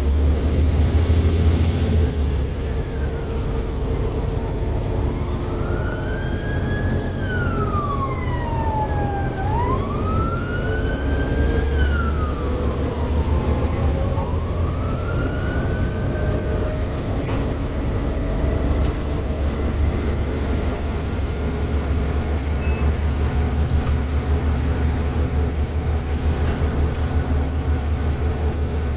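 A bus engine drones steadily from on board while the bus is under way. From about four seconds in, an emergency vehicle's siren wails, rising and falling about four times, then fades out past the middle.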